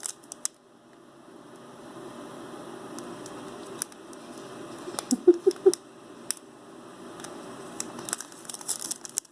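Plastic jewelry packaging crinkling and rustling as it is handled, with scattered light clicks and taps.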